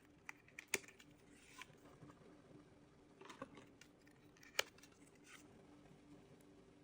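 Packaging being handled: a few sharp clicks of small cardboard and plastic parts, the loudest about two-thirds through, with brief rustling in between.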